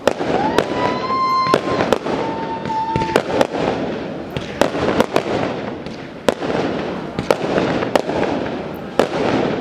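Aerial fireworks bursting: sharp bangs about one or two a second over a dense crackle. A high whistle is held for about three seconds near the start.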